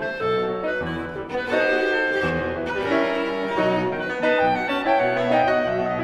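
Classical chamber music from a clarinet, cello and piano trio playing a brisk Allegro movement, with many overlapping notes changing quickly.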